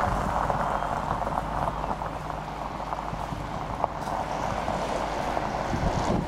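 2007 Dodge Charger SRT8's 6.1-litre Hemi V8 running at idle as the car rolls slowly over gravel, the tyres crunching and popping on the stones.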